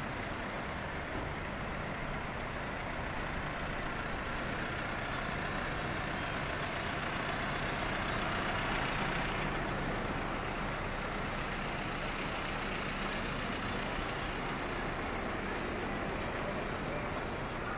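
Street traffic with vehicle engines idling and running at an intersection, under a steady low engine hum. A vehicle passes close about halfway through, and the noise swells and then fades.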